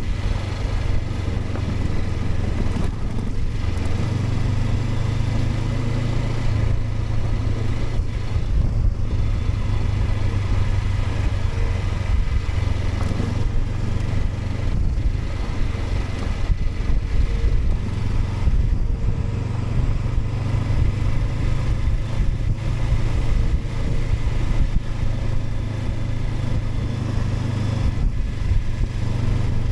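Honda CB500X's parallel-twin engine running steadily while the bike is ridden, its note shifting a little up and down with the throttle.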